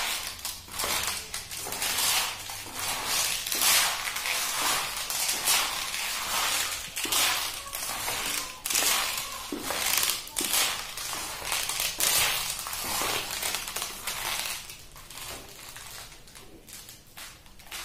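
Leather Kolhapuri chappals creaking with the traditional 'karr karr' sound at each step while being walked in, a crackling creak about once a second. It grows weaker near the end.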